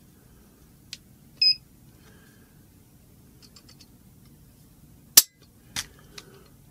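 A digital trigger-pull gauge gives one short electronic beep, then after some faint handling clicks an AR-style rifle's hammer snaps down with one sharp, loud click as its TriggerTech Diamond trigger breaks during a pull-weight test, followed by two softer clicks.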